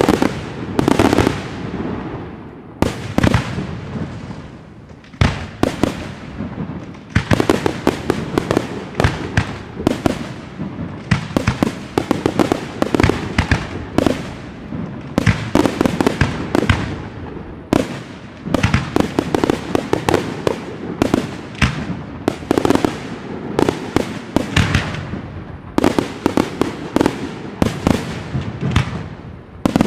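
Professional fireworks display: aerial shells bursting in quick succession, with dense volleys of sharp reports and echoing booms, near-continuous, with brief lulls between clusters.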